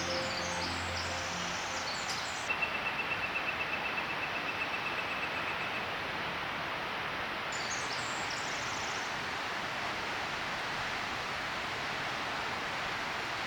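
Steady rush of forest water, the sound of a waterfall or creek in the canyon. Over it, a small songbird sings a level trill of quickly repeated notes lasting about three seconds, starting a couple of seconds in. A few high chirps follow a little later.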